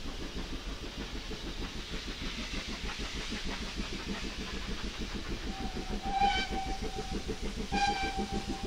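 GWR 4500 class 2-6-2T steam locomotive 4555 working towards the lineside with a steady beat of exhaust, sounding its whistle twice in the second half, the first blast longer than the second.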